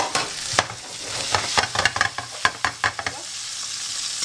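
Hot oil sizzling in a pan on a lit stove, with a utensil clicking and scraping against the pan many times during the first three seconds.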